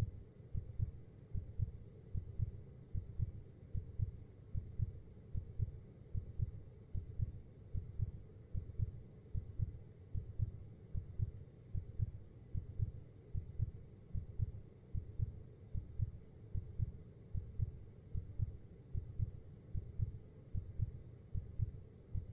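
Heartbeat sound effect: a steady, slow rhythm of low, dull lub-dub thumps, a little over one beat a second.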